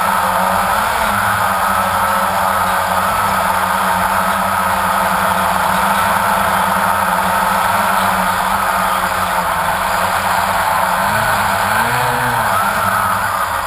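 Quadcopter drone's motors and propellers, recorded from on board: a loud, steady whine whose pitch wavers slightly. About eleven to twelve seconds in the pitch swoops down and back up as the throttle changes while the drone flies low over the sand.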